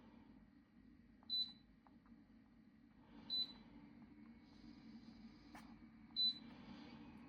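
Three short high-pitched electronic beeps, about two to three seconds apart, from the touch controls of a Dreo ultrasonic humidifier, with one faint click between the second and third beep.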